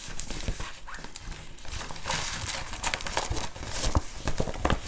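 Rustling and crinkling of a diamond painting canvas and its protective cover sheet as it is turned and handled on a table, with a couple of sharp knocks near the end.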